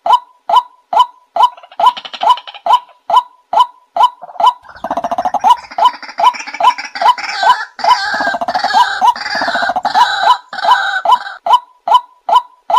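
White-breasted waterhen calls: a monotonous 'wak' repeated steadily about twice a second. From about five seconds in, a louder, harsh croaking chatter of overlapping calls joins it and stops about a second before the end.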